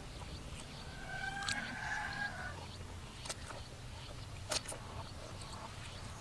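A rooster giving one drawn-out call about a second in, over a low steady rumble, followed by a few sharp clicks of someone eating.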